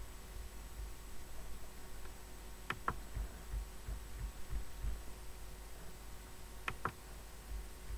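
Two computer mouse clicks, each a quick pair of ticks, about three seconds in and again near seven seconds, the second one pressing an on-screen Apply button. Under them runs a steady low electrical hum.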